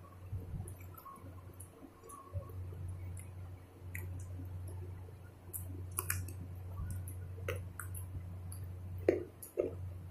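Rice and chicken curry eaten by hand: soft wet squishing as fingers mix the rice on a plate, with mouth clicks and chewing, and two louder knocks a little before the end. A steady low hum runs underneath.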